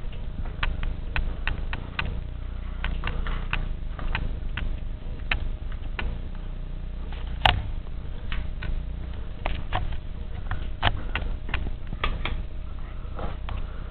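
Irregular small clicks and taps, with one sharper click about halfway through, over a steady low hum.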